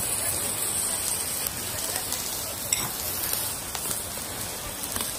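Fish grilling over a fire: a steady sizzle with scattered crackles.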